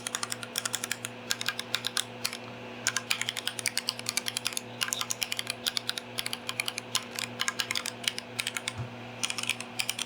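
Keychron Q5 mechanical keyboard, fitted mostly with Akko Jelly Black switches, being typed on in quick irregular runs of keystrokes with brief pauses.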